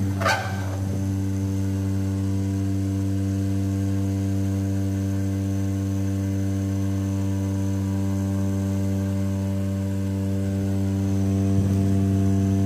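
Small battery mini handheld fan running with a steady, even hum. There is a short knock from handling just after the start and some rustling near the end.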